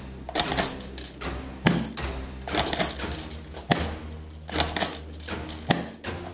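Toy pistols clicking and knocking, sharp and irregular, about one or two a second, over background music with a steady low bass.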